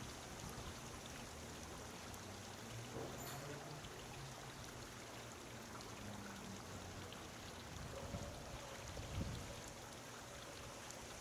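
Small garden fountain trickling, faint and steady, with a faint low hum beneath.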